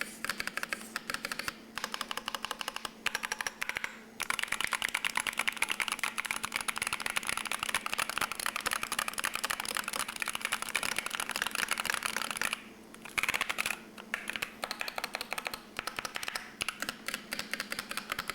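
Fast typing on a Keychron K2 HE keyboard with a concrete case, Gateron Nebula magnetic linear switches and double-shot PBT keycaps: a dense run of key clacks, many to the second, broken by a few short pauses.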